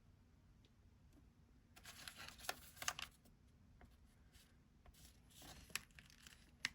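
Faint rustling and scattered small clicks, as of something being handled, in a quiet small room; they are loudest in a cluster about two to three seconds in.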